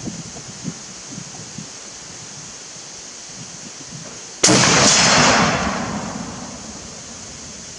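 A single shot from an FN Model 1950 Mauser carbine in .30-06 with an 18-inch barrel, fired about four and a half seconds in. The sharp crack rings out and fades over about two seconds.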